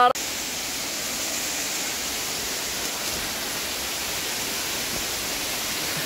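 Small forest waterfall pouring over rocks: a steady, even rush of falling water that cuts in just after the start.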